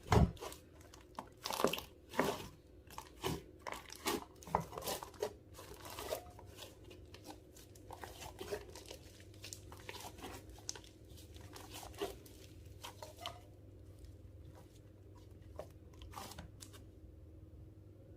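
Clear slime worked by hand, giving irregular sticky clicks, pops and crackles. They come thick and loud for about the first six seconds, then thin out and grow fainter.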